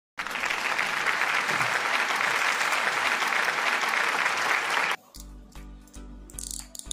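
Applause for about five seconds, cutting off abruptly, then background music with a steady bass line.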